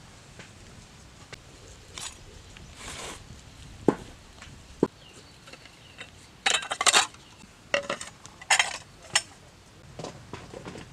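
Dishes and containers being handled: two sharp clicks about four and five seconds in, then several short clattering rattles over the next few seconds.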